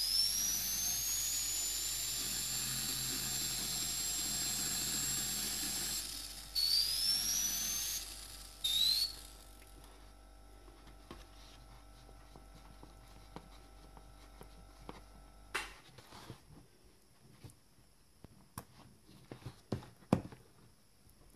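Paasche AB Turbo airbrush's air turbine spinning up with a rising whine over the hiss of air. The whine levels off high and holds for about six seconds, then cuts off. Two short bursts follow, each whining up again, and after that only a few faint clicks.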